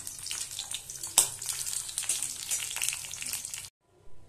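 Bitter gourd slices sizzling and crackling in hot mustard oil in a metal kadai, with a spatula working in the pan and a sharp knock about a second in. The frying cuts off abruptly near the end.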